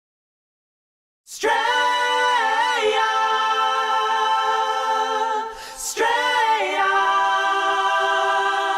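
Unaccompanied voices singing in close harmony: two long held chords after a second of silence, with a short break between them.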